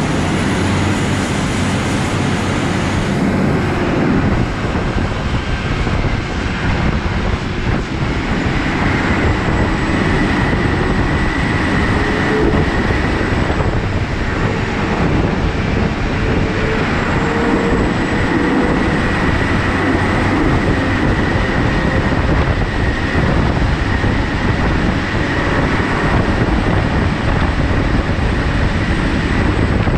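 John Deere 9520RX four-track tractor driving across stubble under load, engine running and tracks rumbling in a steady dense noise, with a faint steady whine coming in through the middle.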